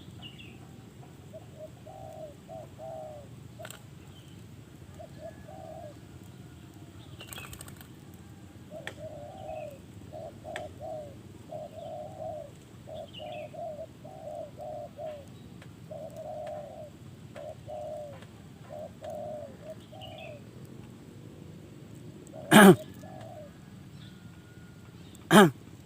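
A dove cooing in a long run of short, repeated coos, with faint higher chirps from other birds. Near the end come two loud, sharp, very short sounds about three seconds apart.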